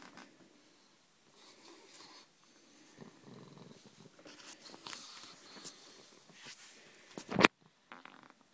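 A pug breathing and snuffling as it lies in its bed, with two spells of rustling. About seven seconds in there is a single sharp knock, the loudest sound, and then a brief gap.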